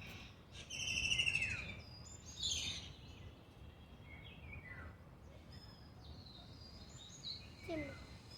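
Wild birds singing and calling: a loud clear whistled note falling slightly in pitch about a second in, a quick downward-sweeping call a little later, then fainter scattered high chirps.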